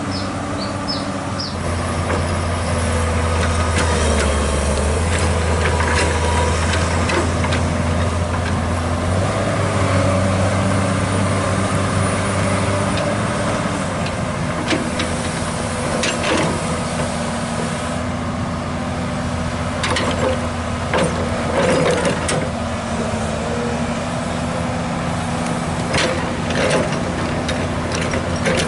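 Komatsu PC200 hydraulic excavator's diesel engine running steadily, its note stepping up and down as the hydraulics take load. From about halfway on, sharp knocks and clanks come from the bucket and arm working the bank.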